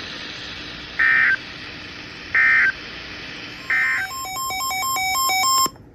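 Weather radio hiss, then three short identical data bursts about a second and a half apart: the EAS end-of-message code that closes a NOAA Weather Radio warning. They are followed by a quick run of stepping electronic beeps at changing pitches, which cuts off suddenly just before the end.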